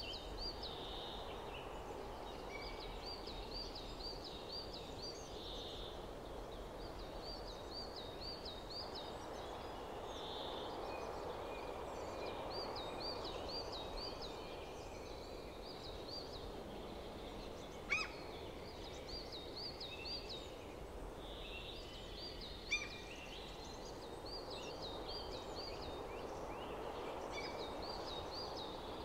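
A songbird repeating short phrases of quick high notes every few seconds over a steady background hum of outdoor noise. Two sharp knocks, one about eighteen seconds in and one about five seconds later, as wooden staves are set onto the wall panel.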